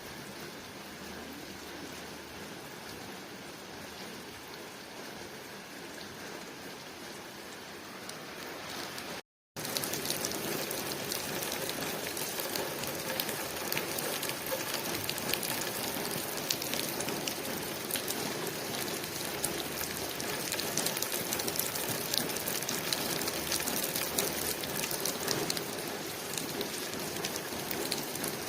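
Steady rain falling on a window pane. About nine seconds in the sound cuts out for a moment, then comes back louder, with many separate drop hits heard through the wash.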